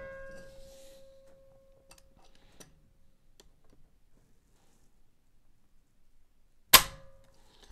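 Dry-fire click of a Beretta 1301 Competition Pro shotgun's hammer falling as the trigger breaks under a trigger-pull gauge, read at about 5 pounds 5 ounces. The sharp click comes near the end and is followed by a short ring. Before it, the ring of the previous click fades out and a few faint clicks come from handling the gun.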